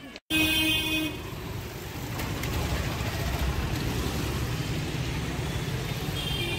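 Road traffic at a busy junction: auto-rickshaw, motorbike and car engines running steadily. A vehicle horn sounds for under a second just after the start, and another horn starts near the end.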